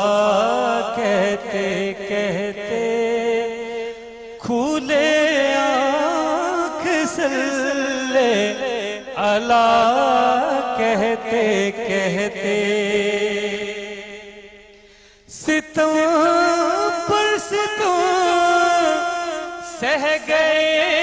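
A man singing a naat, an Urdu devotional song, into a microphone: a solo voice with long, ornamented held notes. About fourteen seconds in, the phrase fades away, and a new phrase starts sharply a second later.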